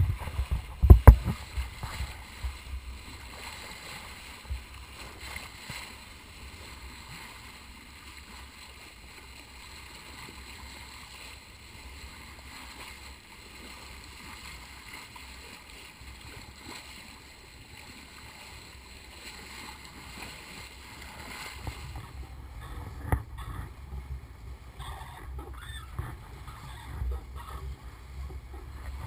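Water rushing and hissing along a motorboat's bow as it cuts through the sea, a steady wash of spray. Low gusty rumbles of wind buffeting the microphone are heard in the first second or two and again from about three quarters of the way through.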